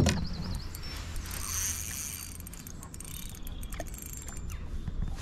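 A sharp click, then a steady low mechanical hum with faint ticking.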